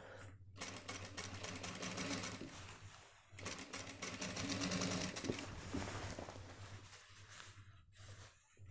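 Industrial sewing machine running in rapid stitching, sewing a collar onto a shirt's neckline. It runs in two spells with a brief stop about three seconds in, then slows and stops near the end.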